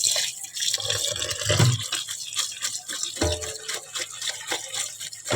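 Water splashing and dripping as boiled noodles are drained and rinsed with cold water.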